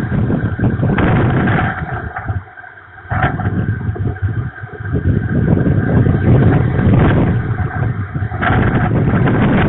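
Strong gusting wind buffeting the nest camera's microphone and tossing the pine branches: a loud, low rushing noise that drops away about two and a half seconds in, dips again near five seconds, then comes back up.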